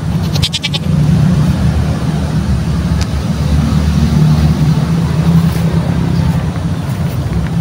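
Steady low engine rumble, like a motor vehicle running with its engine held at an even speed.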